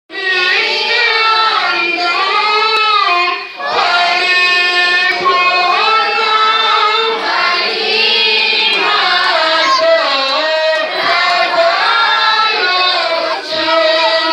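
A group of voices singing a hymn together in long held phrases, with a short break between phrases about three and a half seconds in.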